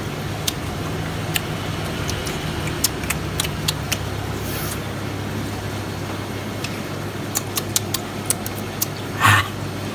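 Steady background hum of road traffic, with scattered sharp clicks of chopsticks tapping the plate and sauce dishes and a louder clatter near the end.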